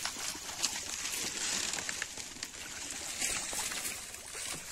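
Shallow muddy water sloshing and splashing irregularly as hands and legs stir it while wading and groping through the mud.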